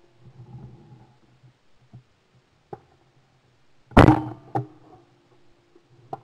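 A single shotgun shot, very loud and sudden, heard from a camera mounted on the gun's barrel, with a brief ringing after it and a fainter crack about half a second later. Before the shot there are only small clicks and low handling rumble.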